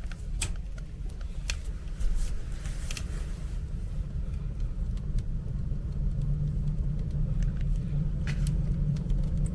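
Fire burning in a wood stove: a low, steady roar of draft that swells louder from about two seconds in, with scattered sharp crackles and pops from the burning wood.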